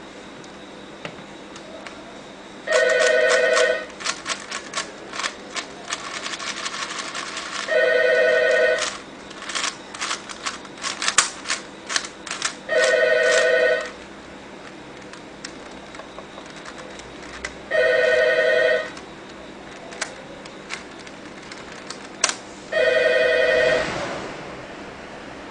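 A telephone rings in short bursts about every five seconds, five times. Between the early rings come fast runs of plastic clicking as the layers of an MF8 4x4 puzzle cube are turned.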